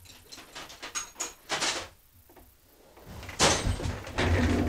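Tools being handled while a screwdriver is fetched: a few light clicks and knocks, then louder scraping and rustling from about three seconds in.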